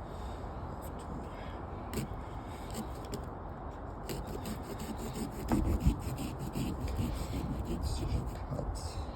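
Knife scraping and chipping at a pumpkin's rind, a rough rubbing sound with small clicks and a louder knock or two a little past halfway.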